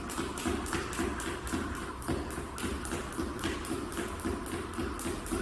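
A speed jump rope slapping the floor in a fast, even rhythm of about three sharp clicks a second, as a skipper jumps as fast as possible in a speed event.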